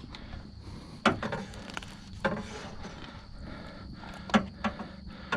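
A few sharp knocks and clunks, with some rubbing between them, as gear is handled in a small fishing boat.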